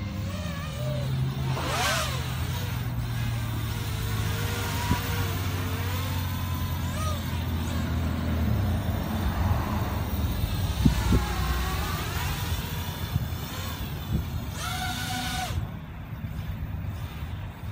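Quadcopter drone's propellers whining overhead, the pitch rising and falling repeatedly as it manoeuvres, over the low hum of road traffic.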